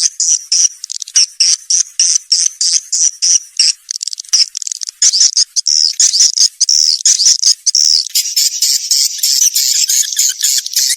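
Swiftlet lure recording: rapid high-pitched swiftlet chirps repeated about four to five times a second, turning into dense, almost unbroken twittering near the end. It is a call track played to attract young swiftlets into a swiftlet house.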